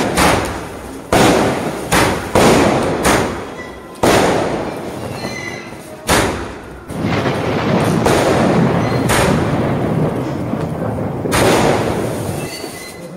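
Leo Fireworks 'Focus' 30-shot fireworks cake firing. Sharp bangs come about once a second at first, then further apart, and each one trails off over a second or so.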